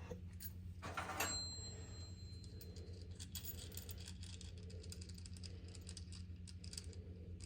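Small metal hardware being handled: faint scattered clicks and light rattles, with one knock about a second in that leaves a thin metallic ring for a couple of seconds, over a steady low hum.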